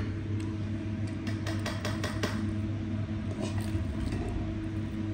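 Fingers mixing rice and fried fish on a steel plate, with a quick run of light clicks and scrapes about halfway through, over a steady low hum.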